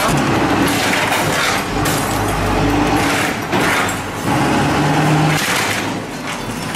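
Armoured vehicle's engine running, with loud cracking and crashing of breaking glass and metal as a window grille is pulled from a wall, in several surges.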